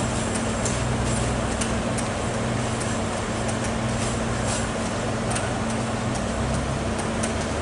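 CrossCountry Voyager diesel multiple unit pulling away, its underfloor diesel engines giving a steady drone with a low hum, and a few light clicks from the wheels on the track. The lower hum drops away near the end.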